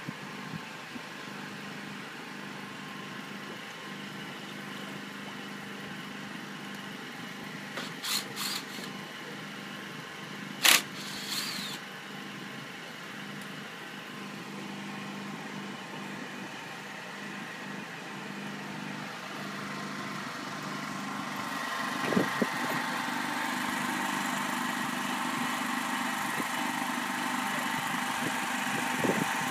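A steady engine hum, like a motor running at idle, that grows louder after about twenty seconds. A few sharp knocks about eight and eleven seconds in.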